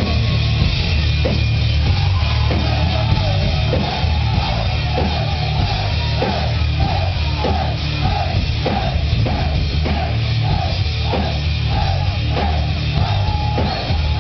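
Live metal band playing loud, with a heavy bass and drum low end and a short guitar figure repeating a bit under twice a second.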